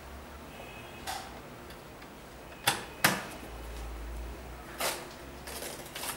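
Handling noise from a sneaker being picked up and turned in the hand: a few sharp knocks and taps, the loudest two close together about three seconds in, with a small cluster of lighter taps near the end.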